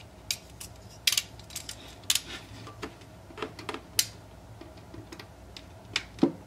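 Irregular light clicks and taps as a clear plastic bottle and a pen are handled on a tabletop while a line is marked on the bottle.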